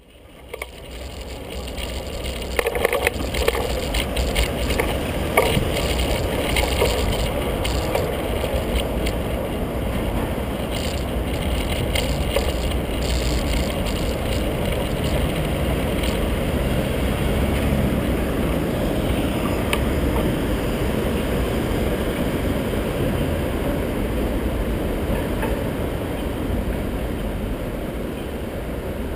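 Wind rushing over the microphone of a bike-mounted camera while riding a bicycle on city streets, with steady low road rumble. A few knocks and rattles a few seconds in as the bike goes over bumps.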